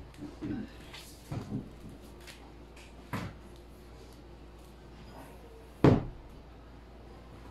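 A small pine stool and a framed mirror being shifted about on a tile floor: a few light wooden knocks, then one louder thump near the end.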